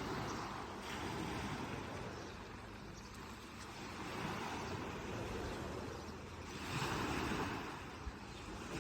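Black Sea surf washing onto the shore, the noise of the waves swelling and falling back three times, with some wind on the microphone.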